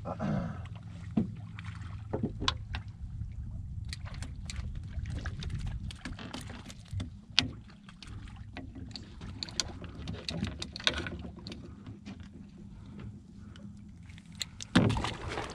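Fishing boat sounds: a steady low hum with scattered sharp clicks and knocks from gear being handled aboard.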